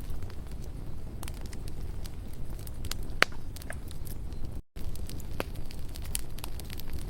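Wood campfire burning, crackling with scattered pops over a steady low rumble, with one sharp pop about three seconds in. The sound cuts out for an instant just after the middle.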